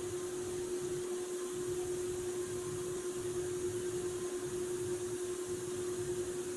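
Powder-coating gun spraying white powder onto toy truck parts: a steady rush of air with a steady motor hum under it.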